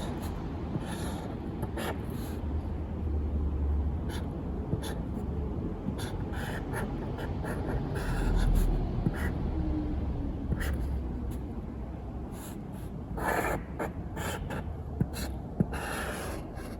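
Hand work on copper refrigerant pipe: scattered short scraping and rubbing strokes with small clicks over a low steady rumble, with one longer, louder scrape about two-thirds of the way through.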